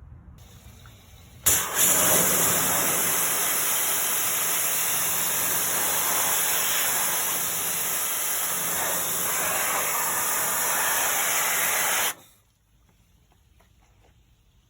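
A pressurised spray hissing steadily. It starts suddenly about a second and a half in, holds level for about ten seconds, then cuts off sharply.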